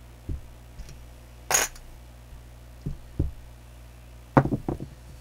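Scattered thumps and clicks of chips and dice being handled on a felt craps table: a few soft knocks, one sharp click, and a quick run of several clicks near the end.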